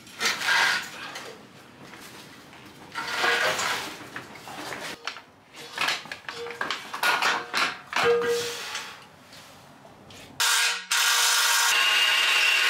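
Irregular scraping, knocking and shuffling of hands and tools working on a removed manual gearbox, then a sudden loud, steady rushing noise that lasts about two seconds and cuts off.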